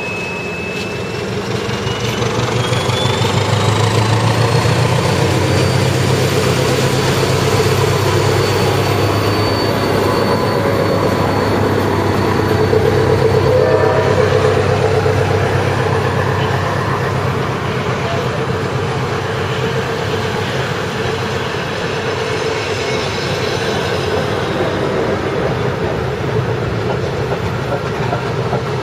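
SM42 diesel-electric locomotive pulling a passenger train out past the platform: its diesel engine drones, with a thin whine rising in pitch in the first few seconds. Once it has passed, the coaches roll by with a steady clatter of wheels on the rails.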